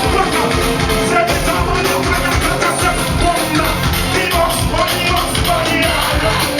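Loud soca-style party music on a big sound system, heavy bass under a singing voice.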